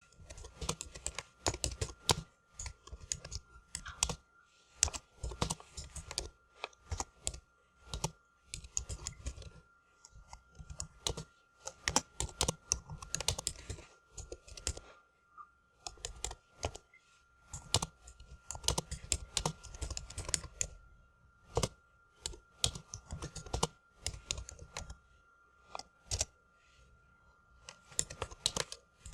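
Typing on a computer keyboard: quick runs of key clicks in bursts, broken by short pauses of about a second, with a faint steady high tone underneath.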